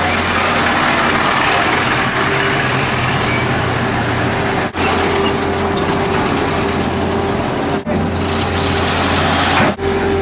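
A vehicle engine running steadily: a constant low hum under an even rumble, with a steadier higher tone joining about halfway through. The sound drops out briefly three times: about halfway, near eight seconds and just before the end.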